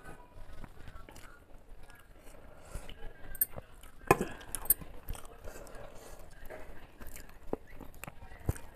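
Close-up eating sounds: chewing, and a hand working rice and curry on a steel plate, with scattered sharp clinks, the loudest about four seconds in.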